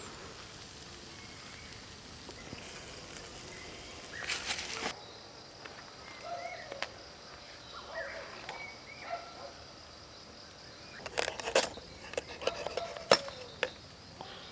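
Outdoor rural ambience: a steady high insect drone, scattered faint bird or animal calls, and a run of sharp clicks and knocks near the end.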